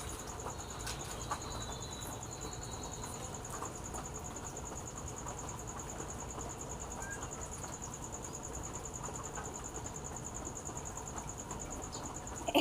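Insect trilling steadily in one high, continuous pulsing note, with a few faint clicks.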